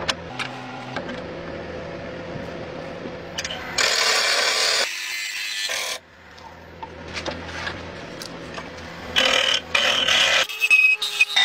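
A lathe running with a steady hum while a hand-held tool cuts into a spinning disc, making loud scraping bursts of about a second, once about four seconds in and again near the end.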